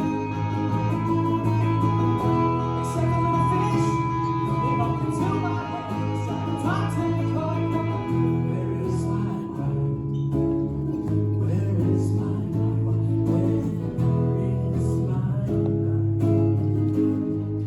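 Live band music led by guitars, playing sustained chords with a heavy low end that change every second or two. Recorded on a cell phone.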